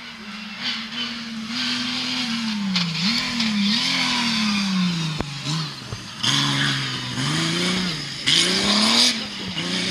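Rally car engine revving hard, its pitch climbing and dropping again and again as it accelerates, shifts and brakes. Loud hissing surges of tyre and road noise come and go over it, the strongest a little after eight seconds.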